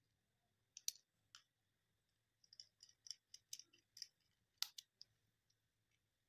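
Faint clicks and ticks of a small screwdriver working the screws of a plastic two-pin mains plug, scattered at first, then a quick run of them, with the sharpest click just past the middle.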